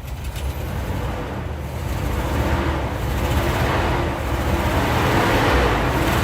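1983 Chevrolet C10 pickup's 305 small-block V8 running on its freshly rebuilt four-barrel carburetor, getting steadily louder.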